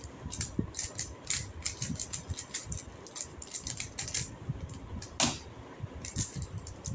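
3x3 puzzle cubes being turned fast by hand: a rapid, irregular clicking and clacking of plastic layers, with one louder knock about five seconds in.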